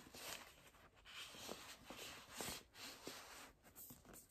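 Faint, uneven rustling of a cloth drawstring bag as a hardcover book is slid out of it, with a few light handling ticks.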